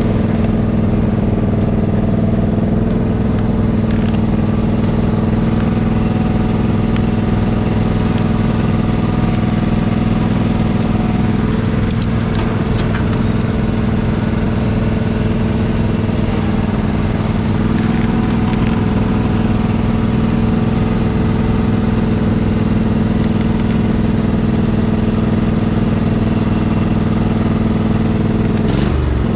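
Riding lawn mower engine running steadily at a nearly constant speed as the mower drives along a trail.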